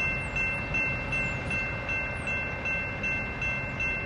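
Railroad crossing signal bell ringing steadily, a little under three strikes a second. The signal is stuck on because a crossing gate has been broken.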